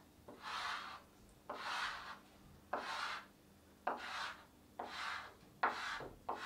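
Chalk being drawn across a blackboard: about seven separate scratchy strokes of around half a second each, several starting with a sharp tap as the chalk meets the board.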